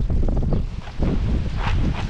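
Wind buffeting the microphone: a heavy, uneven low rumble that dips briefly just before the middle.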